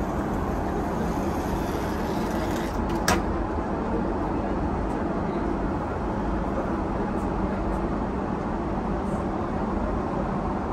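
Steady drone of a Boeing 777-300ER cabin in flight, engine and airflow noise at an even level. A single sharp click about three seconds in, from the suite's sliding door and its latch being worked.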